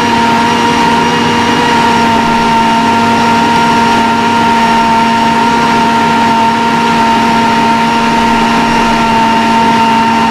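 Electric blender motor running steadily at full speed, with a constant hum and whine, grinding fresh garlic into a paste after the oil has gone in.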